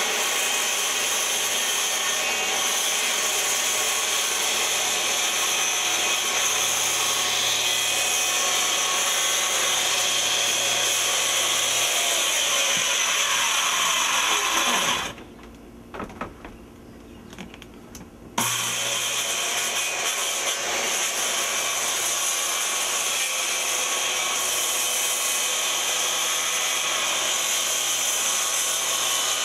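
Electric power saw cutting through the wall for a window opening, running steadily. About halfway it winds down with a falling whine and stops, then starts up again about three seconds later and keeps cutting.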